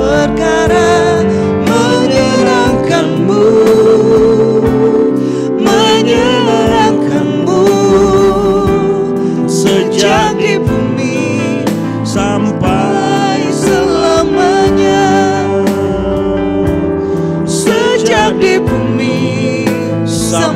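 Worship song performed live: a woman and a man singing over electronic keyboard chords.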